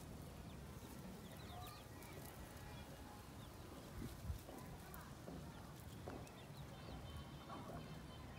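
Quiet outdoor farmyard ambience: scattered short bird chirps over a low steady rumble, with faint rustling of palm leaves as goats pull at them, and a soft knock about four seconds in.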